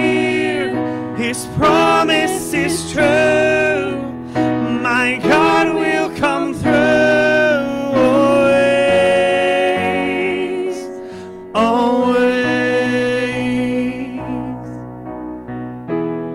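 A man and a woman singing a worship song together into microphones over keyboard accompaniment, with long held notes in the middle. The singing eases off near the end before a new phrase begins.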